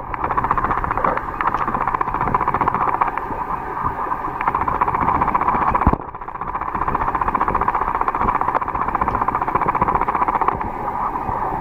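Muffled, steady rushing water noise picked up by a submerged camera, with a brief break about six seconds in.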